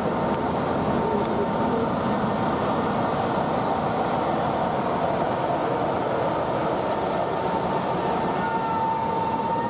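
BR Class 45 'Peak' diesel locomotive's Sulzer 12-cylinder engine running as the locomotive moves past, with a steady high whistle over the engine noise.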